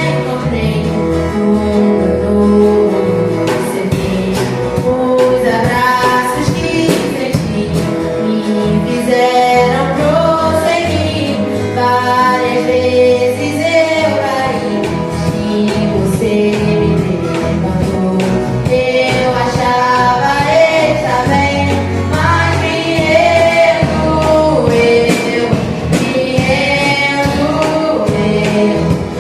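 Gospel song: a woman singing a melody over a band accompaniment with a steady bass.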